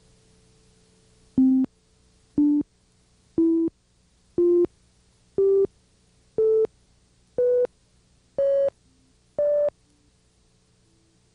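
Electronic countdown beeps: nine short tones about a second apart, each a step higher in pitch than the last, over a faint steady hum.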